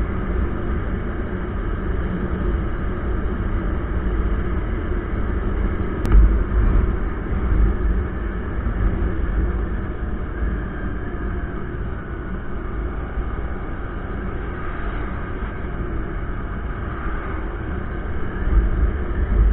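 Wind rushing over the microphone of a CBZ motorcycle cruising at about 50–60 km/h, with the engine running steadily underneath. A sharp click comes about six seconds in, and heavier gusts of low rumble follow it and come again near the end.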